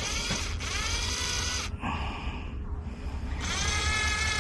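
Cordless drill/driver driving a stiff, hard-to-drive screw in short runs. Its motor whine rises in pitch as it spins up, cuts out twice, and about three seconds in starts again and runs steadily.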